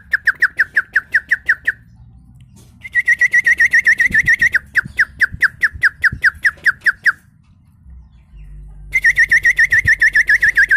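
Human mouth imitation of a bird's song: rapid runs of short, sharp falling chirps, about six a second, in three bouts separated by short pauses, the later bouts opening with a raspy edge.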